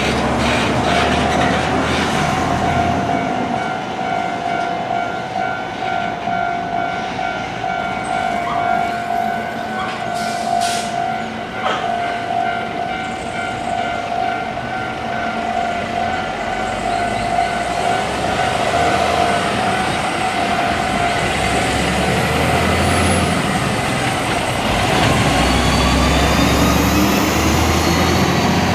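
Level-crossing warning bell ringing with a steady repeating tone while heavy double-trailer trucks run through the crossing. A truck's diesel rumble is loudest at the start and again near the end.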